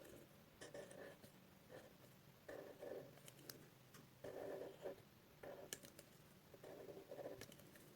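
Faint scratching of a pen drawing on paper, in short irregular strokes with a few light clicks.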